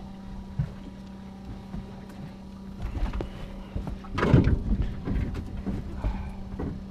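Steady low hum of a fishing boat's engine, with knocks and rustling close to the deck-mounted camera, loudest about four seconds in as someone moves over it.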